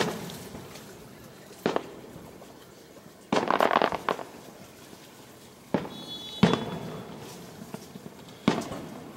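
Aerial firework shells bursting in a series of sharp bangs: one at the start, one just under two seconds in, two around six seconds, and one near the end. About three seconds in comes nearly a second of dense, rapid crackling.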